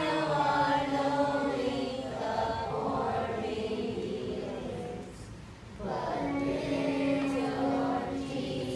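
Children's choir singing, with long held notes and a brief pause about five seconds in before the voices come back.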